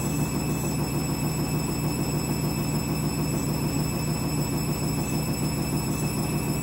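Candy washing machine in its final spin: the drum and motor run with a steady low hum and several thin high whining tones above it, the strange noise heard as the spin ramps up.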